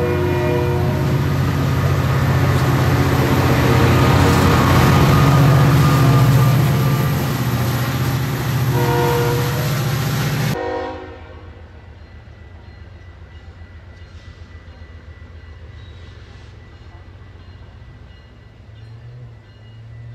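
Metra commuter train of bilevel cars passing close by with a loud, building rumble, while a diesel locomotive horn sounds a chord briefly at the start and again about nine seconds in. About ten seconds in, the sound drops suddenly to a quieter, more distant train rumble, and a low engine tone rises near the end as another train approaches.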